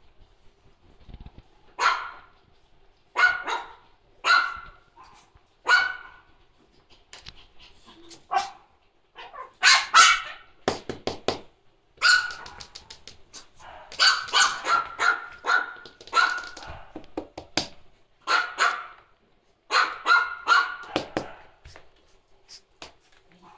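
French bulldog puppies barking while they wrestle in play: high, sharp single barks about once a second at first, then quicker runs of barks.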